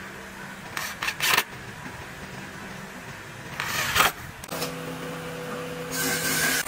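Cordless drill/driver driving screws through a steel concealed cabinet hinge into a wooden board, in short bursts: a cluster of three about a second in and one longer burst about four seconds in. From about four and a half seconds a steady machine hum joins.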